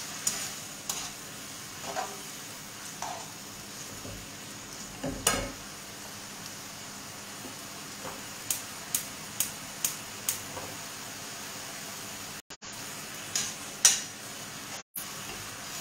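Spaghetti sizzling in a sauce in a frying pan as they are stirred and turned with metal tongs, which click against the pan now and then. About halfway through there is a run of five quick clicks, and a louder knock comes near the end.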